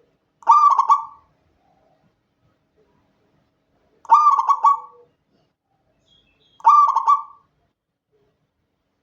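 Zebra dove (perkutut) cooing: three short, rapid, stuttering coo phrases, the second and third about three and two and a half seconds after the one before.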